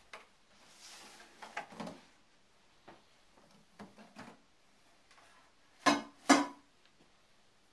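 The latches and hard lid of a KLH Model 11 suitcase portable record player being worked open: scattered clicks and short scraping rustles, then two loud knocks in quick succession about six seconds in as the lid comes off.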